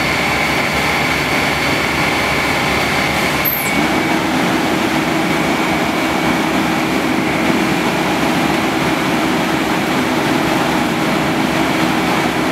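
Fire truck's diesel engine running hard and steady under a constant rushing noise. About four seconds in, a brief high squeal sounds and a low steady hum sets in and holds.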